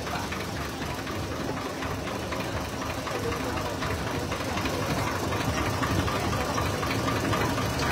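Ferry boat's engine running steadily, a dense low mechanical rumble that grows a little louder toward the end.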